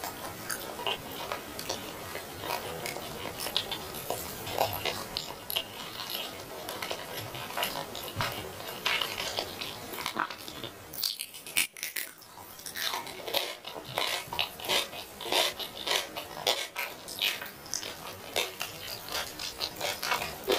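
A person eating grilled chicken close to the microphone: chewing and tearing the meat, with many short wet clicks and crackles. There is a brief lull about halfway through.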